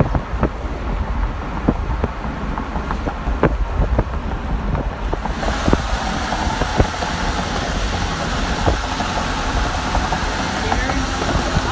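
Car driving along a road, heard from inside the cabin: a steady low rumble of engine and tyres with scattered clicks and knocks. About five seconds in, a rushing wind and road hiss grows louder.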